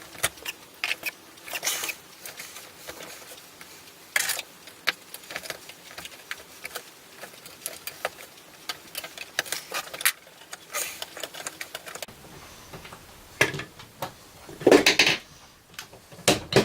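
Irregular small clicks, taps and scrapes of hand work on model railway track, with a louder clatter of clicks and scraping about two seconds from the end.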